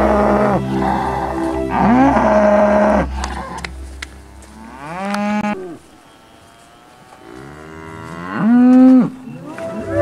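Cattle mooing: several separate moos, each rising and then falling in pitch, the longest and loudest near the end.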